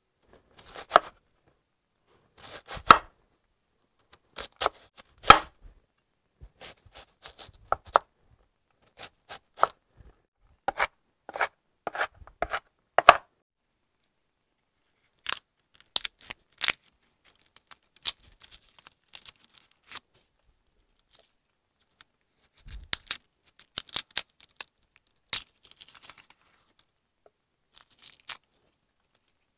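A head of garlic broken apart by hand: dry papery skins crackling and tearing and cloves snapping off, in short irregular bursts with pauses between. A few dull knocks come in among them.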